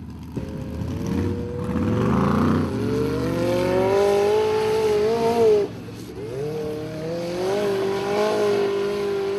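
Formula Offroad buggy's engine revving hard at full throttle as the buggy charges up a steep sand hill. Its pitch climbs for the first few seconds, cuts out abruptly about five and a half seconds in, then revs back up and holds high.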